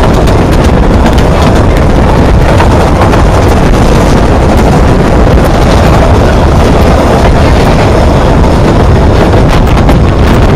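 Wind buffeting the microphone from a narrow-gauge train's open carriage window, loud and constant, over the rumble of the coaches running along the track.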